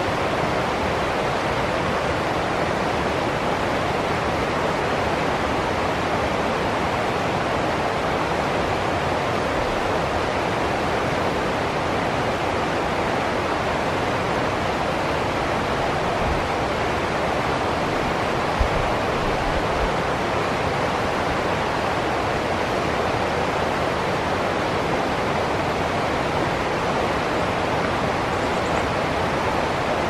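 Rocky stream rushing and splashing over small cascades, a steady, unbroken rush of water.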